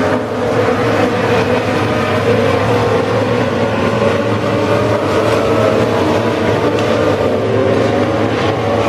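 A field of Legends race cars running at racing speed, their four-cylinder Yamaha motorcycle engines blending into a steady, loud, overlapping drone of several engines at high revs.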